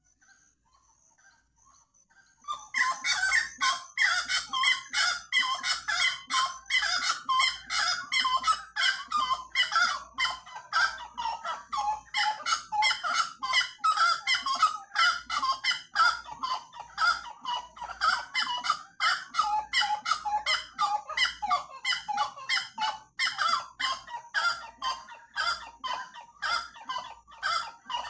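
Wood-rail (saracura) calling loudly, a rapid unbroken run of repeated notes at several a second. The run starts about two and a half seconds in and goes on throughout.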